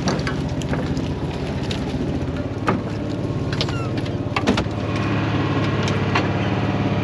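A small fishing boat's engine running steadily, getting a little louder about five seconds in, with a few sharp knocks from handling gear and fish in the boat.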